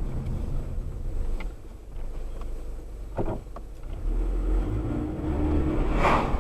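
Car engine and road rumble as picked up by a dashcam inside the car, with a few short clicks about three seconds in and a brief loud noisy burst about six seconds in.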